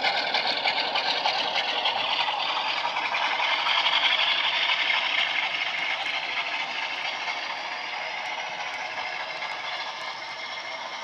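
Model Class 47 diesel engine sound playing from the locomotive's DCC sound decoder through a small tablet speaker, with the rattle of the model train running on the track. It grows a little louder about four seconds in, then fades steadily as the train draws away.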